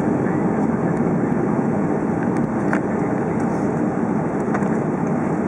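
Steady, even roar of distant jet aircraft engines, with no change in level.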